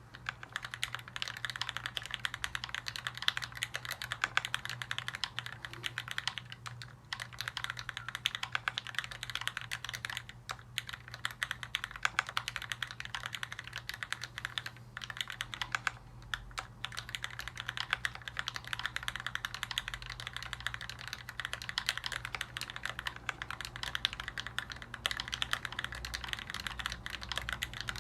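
Fast, continuous typing on an LZ-ergo custom mechanical keyboard with an aluminium plate and lubed Linjar switches on 55 g springs: a dense run of key clacks, pausing briefly a few times.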